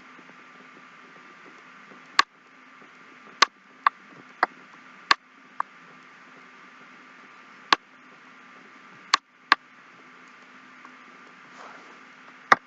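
Computer mouse clicking: about ten sharp, irregularly spaced clicks over a faint steady microphone hiss and hum.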